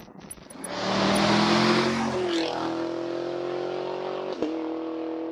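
A vehicle driving, with road and tyre noise and a steady hum of several tones that steps up in pitch about two seconds in. A short click comes near the end.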